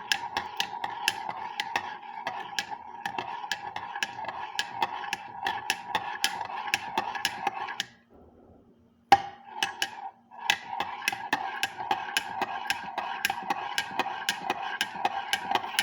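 A spoon stirring chocolate milk, clinking rapidly and evenly against the sides of a hard container, about four clinks a second. It stops about eight seconds in, a single sharp knock follows a second later, and the stirring starts again.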